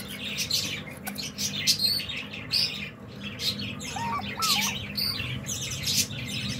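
Small cage birds chirping: many short, high-pitched tweets overlapping in quick succession, with one brief lower call about four seconds in.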